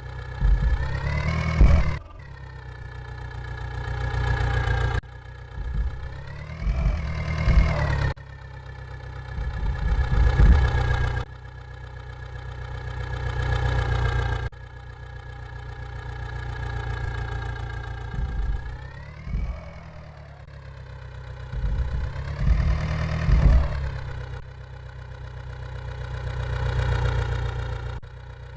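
Vehicle engine idling and revving up and down again and again, cut off abruptly several times in the first half.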